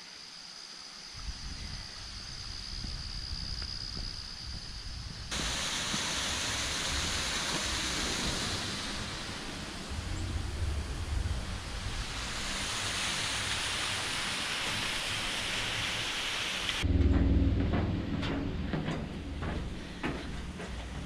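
Stream water rushing through a rock gorge, a dense, even noise that comes in abruptly about five seconds in after a quieter stretch. Near the end it drops away to a quieter, lower sound, with a few irregular footsteps on stone steps.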